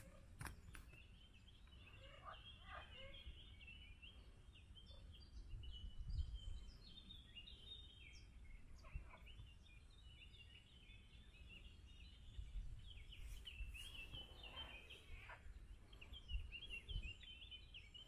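Faint birdsong from the wooded riverbanks: rapid short chirping notes, many of them overlapping, over a low rumble that swells briefly about six seconds in.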